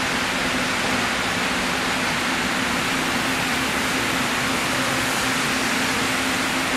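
Steady, even background noise with a faint low hum underneath, unchanging throughout.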